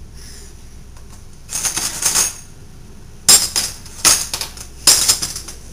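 Metal silverware clinking as pieces are put away into a cutlery drawer: a short run of clinks about two seconds in, then three sharp clinks about a second apart.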